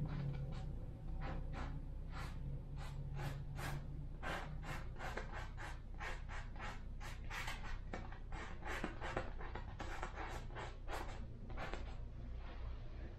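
Paintbrush scrubbing acrylic paint onto canvas in quick, irregular scratchy strokes, several a second, over a low steady hum.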